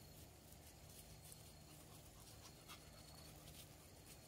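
Near silence with a few faint, scattered clicks from Pomeranians eating noodles out of stainless steel bowls.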